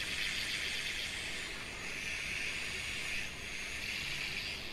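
Steady shortwave static hiss from a regenerative receiver's small speaker as its front-panel knobs are turned, with no clear station.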